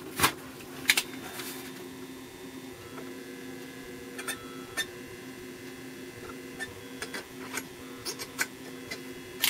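Pistol-grip transformer soldering gun humming steadily while held on a solder joint, with a scatter of sharp clicks and taps from handling the work.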